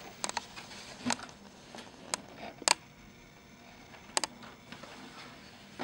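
Cardboard box and its plastic parts tray being handled as the lid comes off: several short, sharp clicks and taps spread over a few seconds, the loudest a little before the middle.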